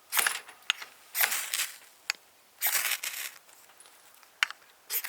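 A knife's spine scraped hard down a ferro rod four times, each strike a short hissing rasp, with light metallic clicks between the strokes. This is a test of how well the spine of a CPM 3V puukko throws sparks to light a fire.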